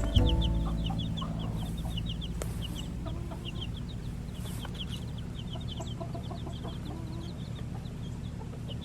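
Chickens clucking and chattering in quick, short calls, over a steady low hum, with a knock right at the start.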